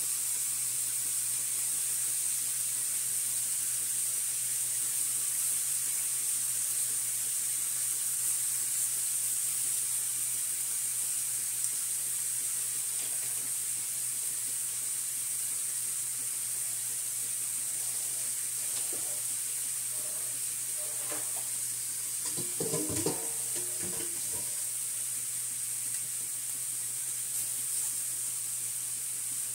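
Seasoned oxtail pieces searing on a cast-iron griddle: a steady sizzle and hiss, with a brief clatter as the pieces are handled about three-quarters of the way in.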